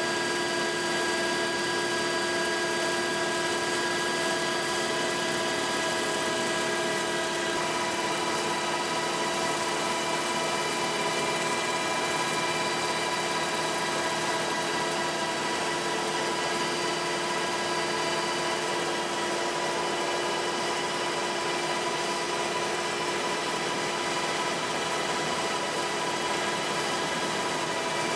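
Aircraft engine noise heard from on board: a steady drone with several steady whining tones, a few of which shift slightly about seven seconds in.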